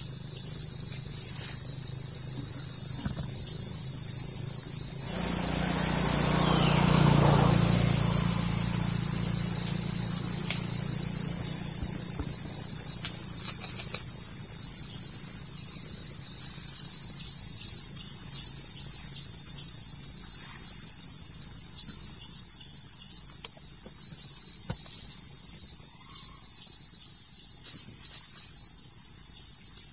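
Steady high-pitched chorus of insects in a forest. About five seconds in, a lower noise joins it for around three seconds, then fades.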